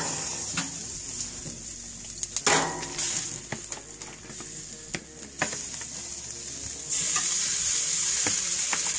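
Marinated chicken pieces sizzling on a hot barbecue grill over open flames: a steady hiss with scattered pops and clicks, getting louder about seven seconds in.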